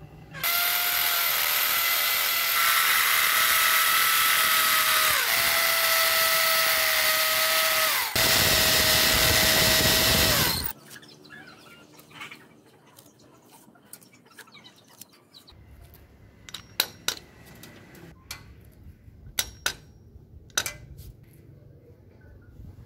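Power drill running in four long bursts over about ten seconds, its whine dipping briefly between them, the last burst heavier and lower. Then a few sharp clicks and taps.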